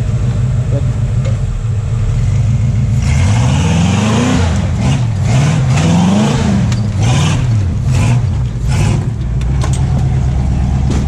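Rock-crawling Jeep's engine idling, then revved up and down about four or five times from about three seconds in as it bumps up over the rocks, with sharp knocks mixed in during the revving.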